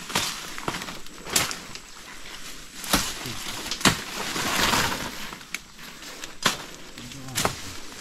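Footsteps through dry leaf litter and brush, with sharp cracks of twigs snapping underfoot about once a second and a longer rustle of leaves about halfway through.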